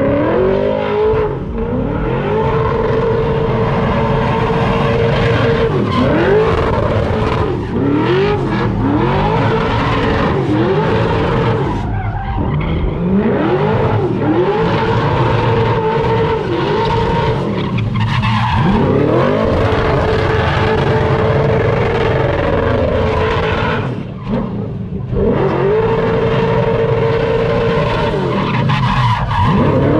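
A car doing donuts: its engine is revved up and held at high, steady revs while the rear tyres spin and skid. The revs fall away briefly several times and climb back, with a string of quick rev rises partway through.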